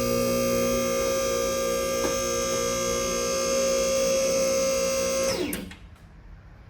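Car lift's electric hydraulic pump motor running with a steady hum as it raises the car, then switching off about five seconds in and winding down in pitch.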